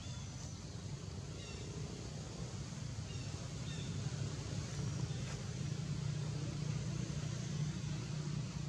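A steady low engine hum, like a motor vehicle running nearby, growing slightly louder after the middle, with a few faint, short high chirps above it.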